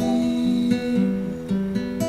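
Acoustic guitar strumming chords, with new chords struck about every half second.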